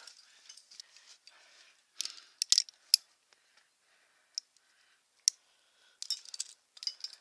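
Metal climbing quickdraws, with their aluminium carabiners, clicking and jingling against each other on a harness gear loop as they are handled. The clicks are sharp and come in small clusters: a group about two seconds in, single clicks around four and five seconds, and another group near the end.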